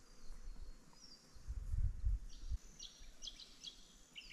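Small birds chirping in quick series of short high notes, mostly in the second half. A low rumble swells and fades about one and a half to two and a half seconds in.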